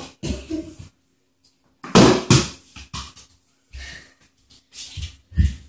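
A few dull thuds on a hard floor, two close together about two seconds in and another near the end, with breathing in between.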